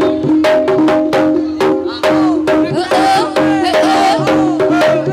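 Live Jaranan gamelan music: quick, even kendang drum strokes over a steady held tone, with a bending melodic line above.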